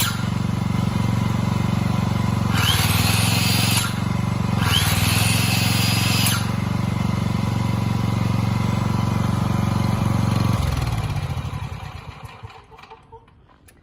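Shindaiwa EG18S generator's small gasoline engine running steadily. Twice, a higher whirring that rises in pitch comes on for a second or so. About ten and a half seconds in the engine is shut off and runs down to quiet.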